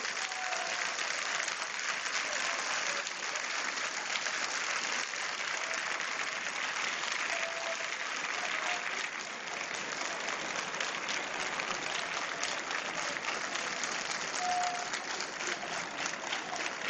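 A large crowd applauding steadily, a dense continuous clatter of clapping with a few voices calling out.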